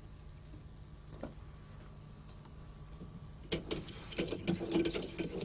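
Hand pump drill with a flywheel, pumped up and down to bore and cone the rivet holes in a nickel-silver knife crossguard: a fast, dense rattling and scraping that starts about three and a half seconds in. Before it there is only faint room tone and one light tap.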